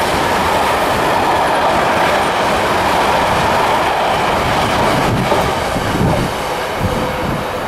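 Loaded flat wagons of a Class 66-hauled freight train rolling past at close range: steady wheel-on-rail noise, with a few heavier knocks in the last couple of seconds.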